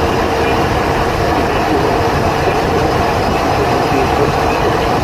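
Steady rumble and road noise of a moving vehicle, with a constant drone running through it.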